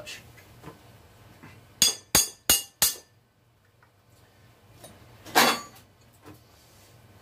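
Ratchet wrench on the cylinder head bolts of a flathead engine, loosening bolts that were overtightened: four sharp metallic clicks about a third of a second apart, then a single short rasp about five seconds in.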